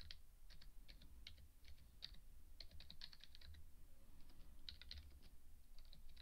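Faint typing on a computer keyboard: quick key clicks in short irregular runs with brief pauses between them.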